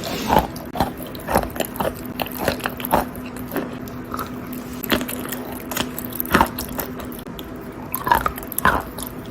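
A person biting and chewing a chalk tile coated in wet clay paste: irregular crisp crunches, one or two a second, some louder than others, with soft wet squishing between them.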